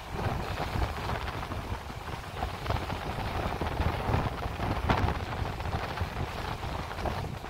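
Wind buffeting the microphone over choppy open sea: an uneven rumble and hiss that surges in gusts, loudest about five seconds in.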